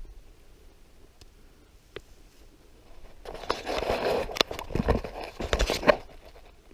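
Handling noise on an action camera: a few seconds of crackling, rustling and scraping with several sharp knocks as the camera is moved and grabbed by hand.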